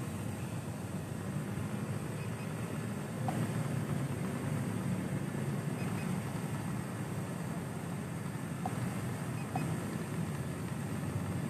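A steady low rumble, with a thin faint high whine above it.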